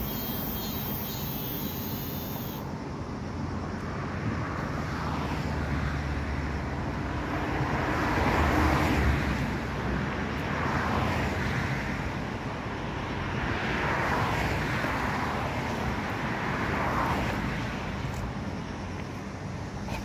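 Road traffic: a steady hiss of tyres and engines with cars passing one after another, each swelling and fading over a couple of seconds, the loudest pass about nine seconds in.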